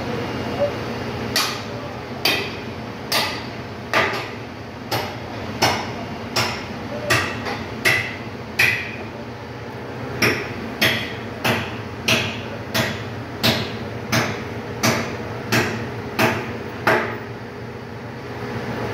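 Hammer blows on metal in a steady rhythm, about one and a half a second, each with a short metallic ring, about twenty in all with a brief pause near the middle, over a steady machine hum.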